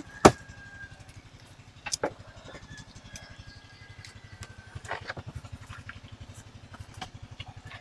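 A small engine idling steadily in the background, a fast even low pulsing. A few sharp clicks of metal tongs against a frying pan come over it, the loudest just after the start and others about two and five seconds in.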